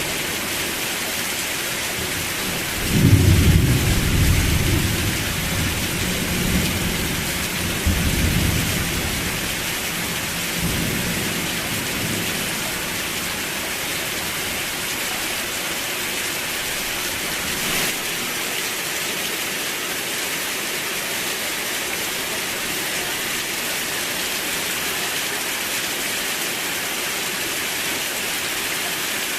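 Steady rain hiss with a roll of thunder about three seconds in: a low rumble, loudest at its start, swelling again a few seconds later and dying away after about nine seconds.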